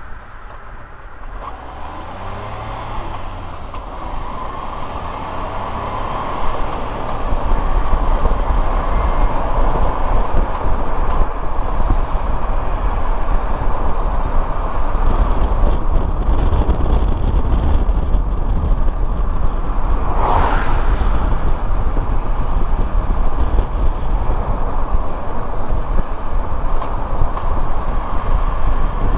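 Suzuki Jimny driving: the engine note rises over the first few seconds as it speeds up, then settles into a steady rumble of engine and tyre noise. A brief swell of noise comes about twenty seconds in.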